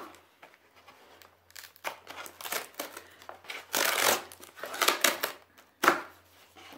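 Cardboard shipping box being ripped open along its top seam: a series of short rasping rips and scrapes, the longest about four seconds in, ending with a sharp rip near the end.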